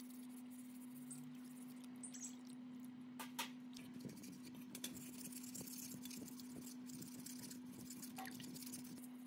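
Hands washing a metal shaft in a basin of water: soft splashing, dripping and small clicks of the part being turned and scrubbed, over a steady low hum.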